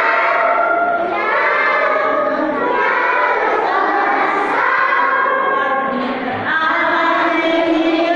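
A group of young children singing a song together, in phrases with a short break about six seconds in.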